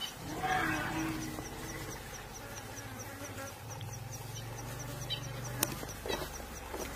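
Insect buzzing close to the microphone, a steady low drone that swells for a couple of seconds in the middle, over a faint high ticking about three times a second, with a single sharp click near the end.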